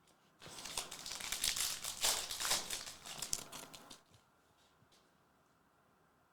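Plastic foil wrapper of a trading card pack crinkling as it is torn open and handled. This lasts about three and a half seconds and stops about four seconds in.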